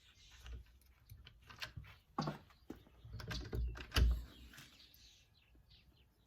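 Clicks and knocks of a lever door handle being pushed onto the lock, with a louder thump about four seconds in.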